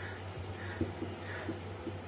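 Faint strokes and small taps of a marker writing on a whiteboard, over a steady low hum.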